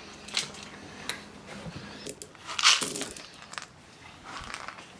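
Calico cat crunching dry cat food, heard as scattered short crunches, with one louder noise a little past halfway.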